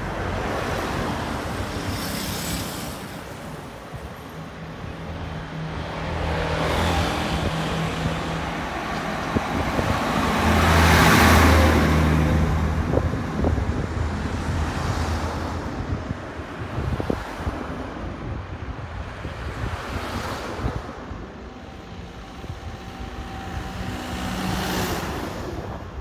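Road traffic: several cars driving past one after another, each swelling and fading, the loudest about halfway through with a low engine hum.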